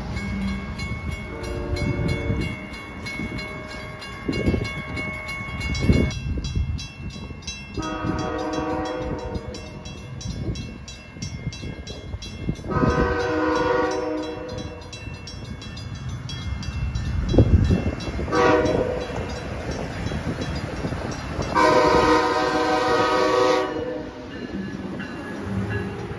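Horn of an approaching Amtrak Acela Express sounding two long blasts, a short one and a final long one, the standard grade-crossing signal, after a brief fainter blast about two seconds in. A low rumble runs beneath, with a few dull thumps.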